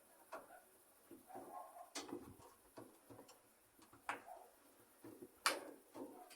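Scattered clicks and knocks of parts and tools being handled while an Electrolux LF90 washing machine is taken apart, the sharpest knock about five and a half seconds in.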